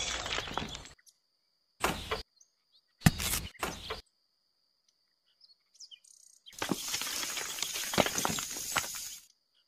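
Small stone chips scraped up with a miniature metal shovel and clattering into a small metal bowl in a few short bursts, then the chips poured out of the bowl, rattling for about three seconds near the end.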